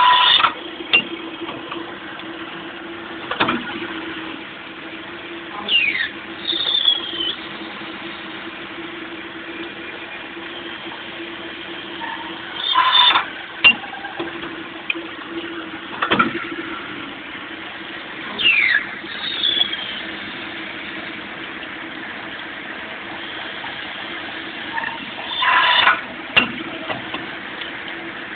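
Cam-type automatic lathe running in automatic production of turned parts: a steady hum, with a repeating cycle about every six and a half seconds of brief high squeals and screeches from cutting and sharp clicks and clacks as the tooling moves.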